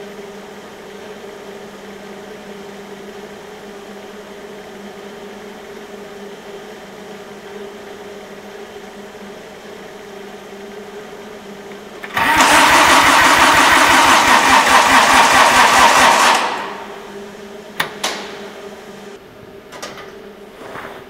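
Starter cranking a cold small Kubota diesel in a Cub Cadet garden tractor for about four seconds, with a steady pulsing beat, then stopping without the engine catching. This is a failed cold start at around 24°F. A steady low hum comes before it, and a few sharp clicks follow.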